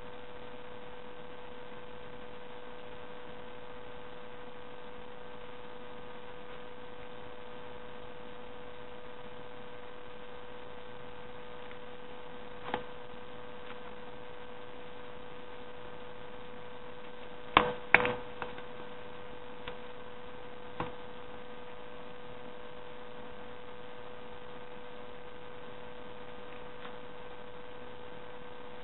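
Steady electrical hum on one note throughout. A few sharp clicks of scissors cutting folded paper break through it, the loudest pair about eighteen seconds in.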